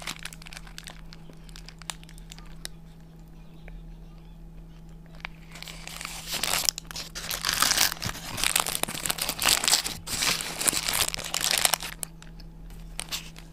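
Paper wrapper of a shawarma crinkling and rustling in the hands, in repeated bursts from about five seconds in, after a quieter stretch with a few small clicks.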